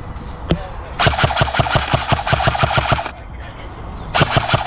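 Airsoft electric rifle firing on full auto: a single click, then a rapid burst of about two seconds, and a second burst near the end.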